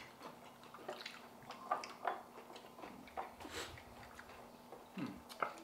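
Faint eating sounds at a table: soft chewing and lip smacking with a few small clicks, and a brief hiss about three and a half seconds in.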